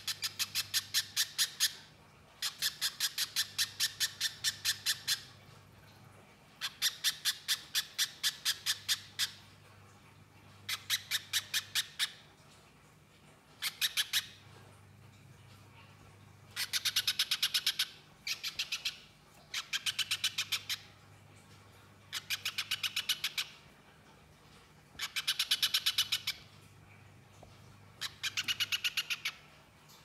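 Little spiderhunter (pijantung pisang) singing: bursts of rapid, evenly repeated high chattering notes, each burst one to three seconds long, about eleven times with short pauses between.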